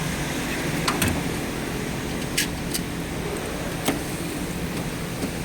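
Tool chest and tools being handled: about five sharp metallic clicks and clinks over a steady background hum.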